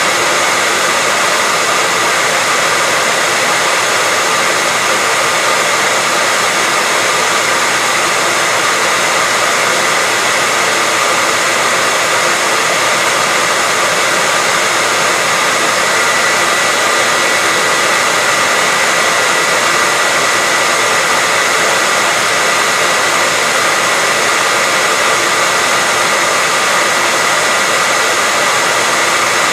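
Hair dryer running steadily: an even, unbroken blowing hiss with a steady high whine from the motor.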